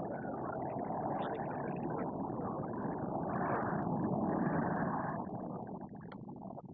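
Jet engine noise from a formation of BAE Hawk T1 jets flying past, a steady rushing sound that swells about three to five seconds in and then fades away near the end.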